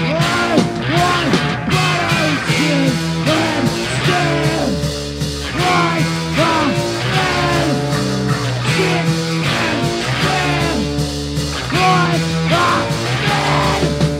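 Garage punk song from a record: a full rock band playing with a steady, driving beat.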